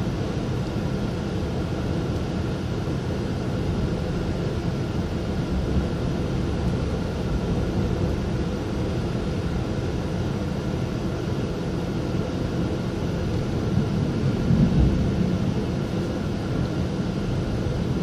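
Cabin noise inside a moving GYSEV Ventus electric train: a steady rumble of wheels on rails with a faint hum. It swells briefly louder about fifteen seconds in.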